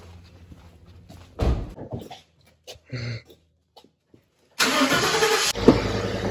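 A pickup truck's engine is cranked and starts about four and a half seconds in, then settles into a steady idle. A thump comes earlier, about a second and a half in.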